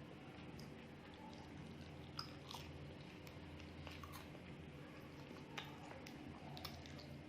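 Close-miked eating: mouth chewing with soft smacks and occasional crisp crunches, with a steady low hum underneath.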